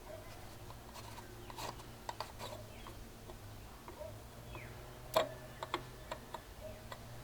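Scattered light clicks and taps of a socket and tools on the plastic oil filter housing of a Holden VE Commodore's V6, as the housing is worked loose. They come in two small clusters, over a faint steady low hum.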